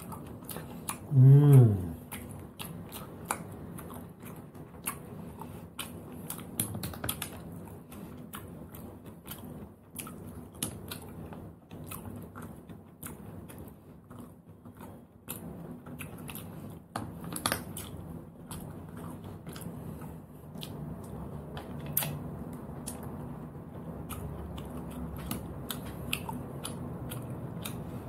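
Eating sea snails: small clicks and taps of hard shells and a toothpick, with chewing and mouth sounds, scattered irregularly throughout. About a second in comes one short, loud vocal sound that falls in pitch.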